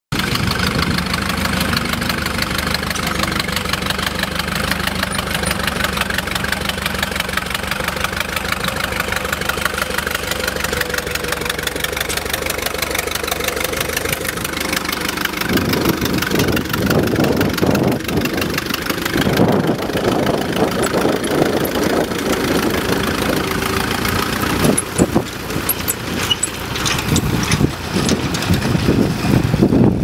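Allis-Chalmers Model C tractor engine running steadily while pulling a two-furrow plough. About halfway through it becomes louder and rougher.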